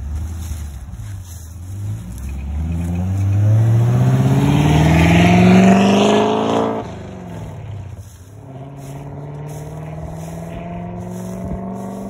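BMW E39 540i's 4.4-litre V8 running through hollowed-out catalytic converters with no resonators, accelerating hard: the engine note climbs steadily in pitch and gets loudest over about four seconds, falls away sharply about seven seconds in, then climbs again more gently.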